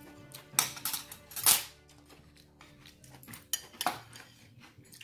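Metal spoons clinking and knocking against ceramic bowls at a dining table: a handful of sharp clinks, the loudest about one and a half seconds in, with background music underneath.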